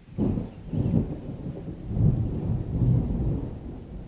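Rolling thunder: a low rumble that starts suddenly and swells and fades several times, over a faint hiss of rain.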